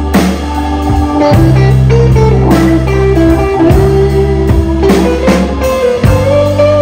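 Live blues band playing: electric guitar lines over a drum kit, with a steady low bass line and regular drum strokes.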